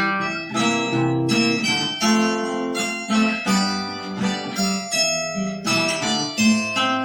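Acoustic guitar and harp zither playing an instrumental piece together, plucked notes ringing one after another in an even, flowing rhythm.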